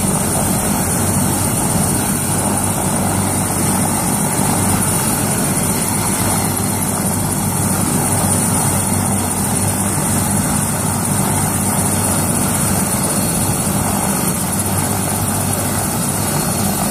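Helicopter running on the ground with its rotor turning at a steady speed, held ready to lift off: a loud, even rotor noise with a steady high whine over it.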